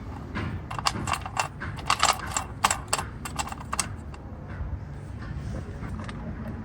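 Irregular sharp metallic clicks and clinks as a running-board mounting bolt is tightened with a hand tool. They are busiest in the first three and a half seconds and then thin out.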